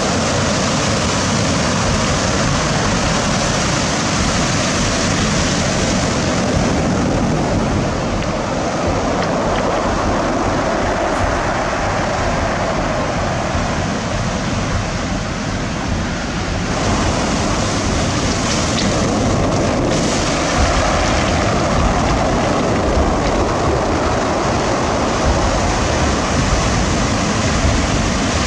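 Sea waves breaking, with wind buffeting the microphone; the wind rumble grows stronger about two-thirds of the way in.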